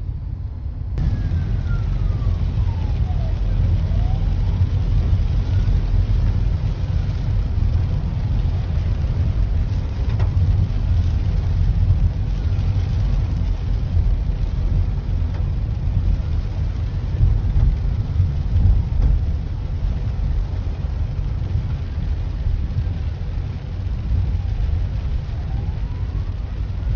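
Hong Kong Fire Services ambulance siren wailing faintly, its pitch sweeping slowly down and up every couple of seconds. It is heard from inside a following car, over a heavy low rumble of the car and rain.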